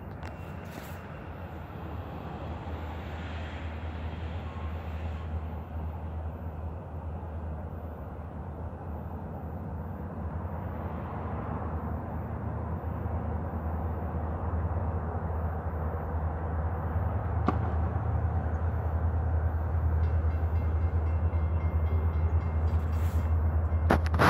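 Low, steady diesel locomotive rumble of an approaching Huron & Eastern freight train, growing gradually louder as it nears.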